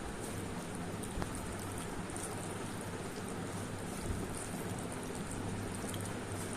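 Eating sounds from a meal of rice and curry: scattered faint clicks and taps over a steady hiss and low hum.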